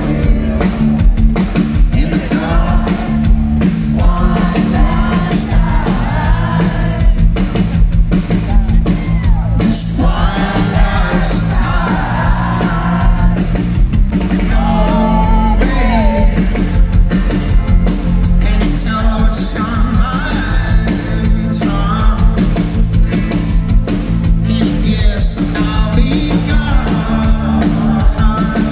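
Loud live rock band: a male lead vocal over electric guitar and a drum kit keeping a steady beat, recorded from the audience.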